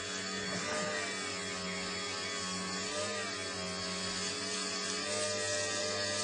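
Electric potter's wheel running steadily with a motor hum, its pitch dipping slightly now and then, while hands press a mound of clay down to centre it.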